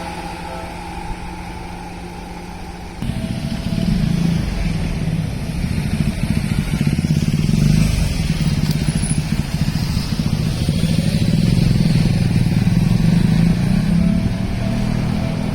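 Seibu 2000 series electric train passing at speed over a level crossing. The rumble of its wheels on the rails starts suddenly about three seconds in and stays loud from then on.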